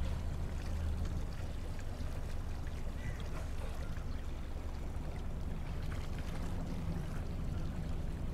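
Outboard motor running at idle, pushing the boat slowly through a no-wake zone, a steady low hum with water washing along the hull.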